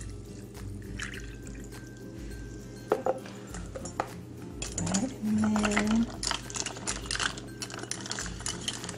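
Chilled chai tea poured into a plastic cup of ice cubes, then ice clinking against the plastic cup as the drink is stirred, over quiet background music. A short low humming tone rises and holds for about a second about five seconds in.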